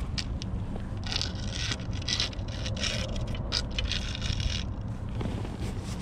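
Scraping and rustling from about a second in until nearly five seconds in, over a steady low rumble.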